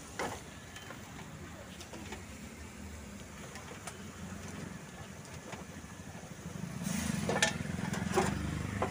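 Steady street-traffic background, with a motor vehicle's engine rumble growing louder about two-thirds of the way through. A few sharp clinks, typical of a ladle against a pan or pot, come near the end.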